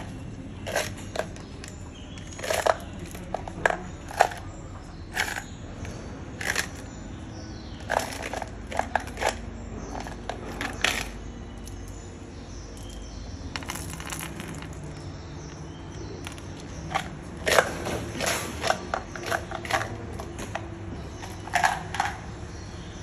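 Small steel ball bearings clinking and rattling as they are picked through in a jar and set down on a concrete floor. The clicks come in irregular clusters, with a quieter gap partway through.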